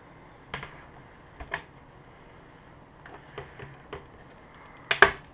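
Plastic retaining clips of a Toshiba Satellite S55 laptop's bottom cover snapping loose as the panel is pried off. A scattering of light clicks, then a loud double snap near the end.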